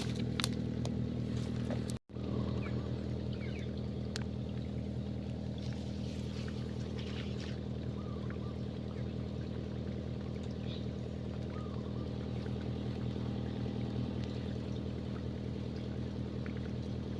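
Excavator's diesel engine running steadily at a constant speed, with a brief break about two seconds in.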